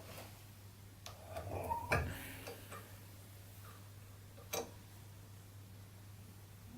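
A grommet hand press and small metal grommet parts being handled on a table: a few light clicks and a sharp knock about two seconds in, then another single click near the middle, over a steady low hum.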